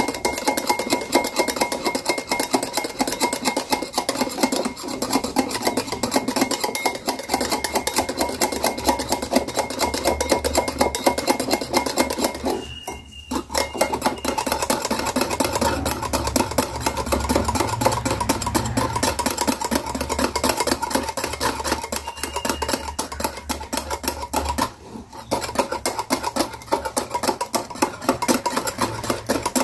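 Metal wire whisk beating coffee powder, sugar and water into a thick whipped cream in a glass bowl: rapid, steady strokes of the wires scraping and clinking against the glass, with two brief pauses, about 13 seconds in and near 25 seconds.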